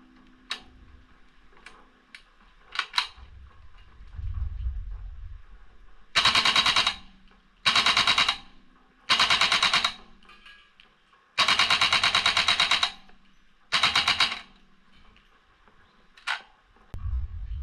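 KSC AK74M gas-blowback airsoft rifle firing on full auto in five short bursts of rapid, sharp reports, the fourth burst the longest. A few single clicks come before the bursts and one after, with dull low rumbles of handling noise between them.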